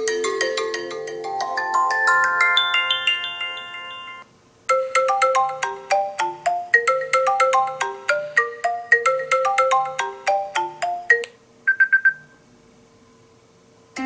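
iPhone ringtones playing one after another. A melody of chiming notes fades out over about four seconds. After a brief pause a quicker, repeating tune of bell-like notes plays for about six seconds. Then come four quick high notes.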